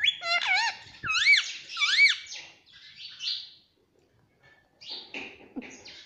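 Indian ringneck parakeet calling: a run of shrill calls that swoop up and down in the first two seconds, then softer, raspy chatter, a short pause, and more harsh calls near the end.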